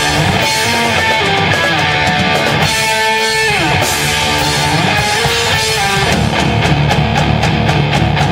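A live band playing a rock song: sustained guitar notes that slide between pitches over a heavy low end. About six seconds in, the drums settle into a fast, even beat.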